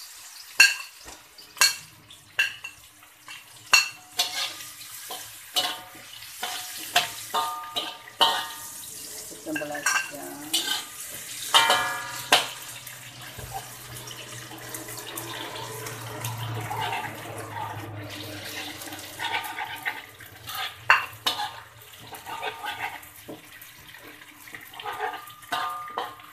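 A metal fork clinks and scrapes repeatedly against a wok while garlic, dried anchovies and shrimp paste fry in hot oil, with a steady sizzle underneath.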